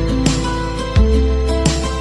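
Soft instrumental background music with plucked notes over a deep bass, a new chord struck about every 0.7 seconds.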